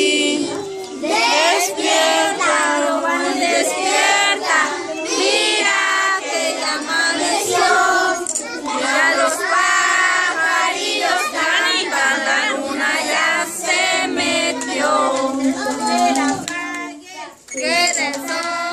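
A group of voices, children's among them, singing a birthday song together around the cake, with a short break near the end.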